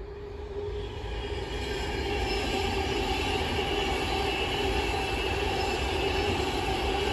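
Avanti West Coast Class 390 Pendolino electric train passing. Its noise grows over the first couple of seconds and then holds steady, with a steady whine running through it.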